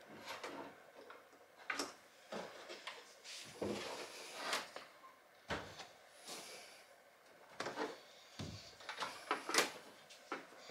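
Irregular knocks, clicks and scraping as a GT40's dashboard is worked loose and tilted out of the car. The sharper knocks come a second or more apart, with softer rubbing and rustling between them.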